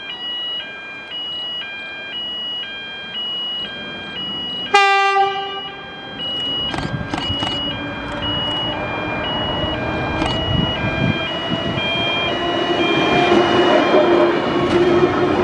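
Level crossing warning bell ringing steadily in an alternating two-note pattern. A double-deck electric passenger train sounds one short horn blast about five seconds in, then approaches with its motor whine and wheel noise growing louder.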